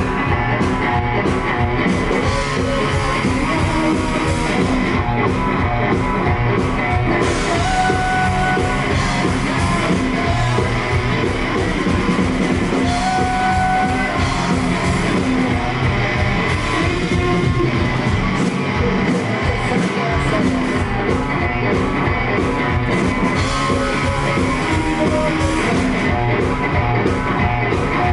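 Live rock band playing loud with a steady drum beat and electric guitar, and a woman singing into a microphone.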